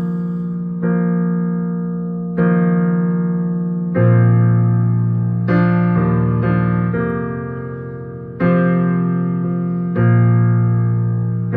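Piano playing slow, sustained chords, a new chord struck about every one and a half seconds and left to ring and fade, with a few quicker strikes near the middle.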